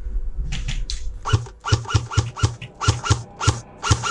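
A rapid, uneven series of short knocks, about four or five a second, starting about half a second in.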